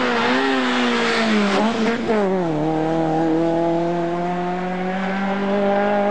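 Rally car engine running hard at high revs, dropping sharply in pitch about two seconds in, then climbing steadily as the car accelerates again.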